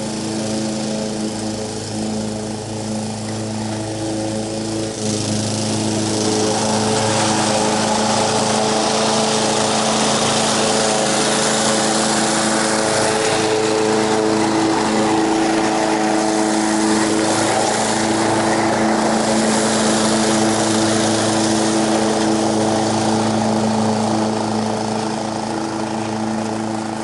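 Honda HR194 push mower's small gas engine running steadily at full throttle while cutting grass. It grows louder about five seconds in as it comes nearer and eases a little near the end. It is running well off choke, its blocked carburetor freshly repaired.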